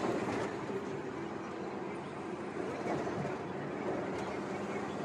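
Volvo B9R coach cruising at highway speed, heard from inside the cabin: a steady drone of the engine mixed with tyre and road noise.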